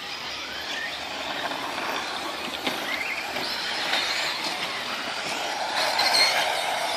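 Electric 1/8-scale RC buggies, among them a Tekno EB48, running laps on a dirt track: high motor whines rise and fall with the throttle over tyre noise on the dirt, loudest about six seconds in.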